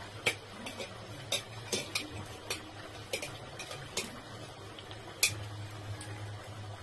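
A metal spoon clinking and tapping against steel dishes while sauce is scooped and spread onto a burger bun, about eight irregular clicks, the sharpest about a quarter second in and just after five seconds. A steady low hum runs underneath.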